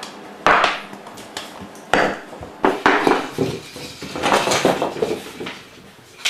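A run of clattering knocks and clinks of hard objects: several sharp single knocks in the first three seconds, then a busier stretch of rattling.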